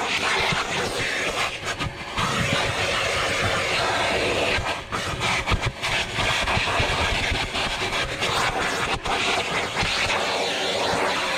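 Vacuum cleaner running steadily as its nozzle works over car interior carpet, with a steady motor hum under a rushing airflow hiss. The sound dips briefly a few times, around two, five and nine seconds in.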